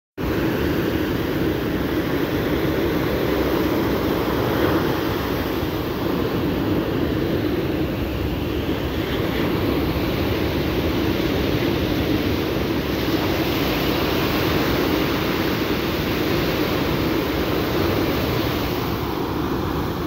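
Ocean surf breaking and washing up a sandy beach in a steady rush, with wind buffeting the microphone.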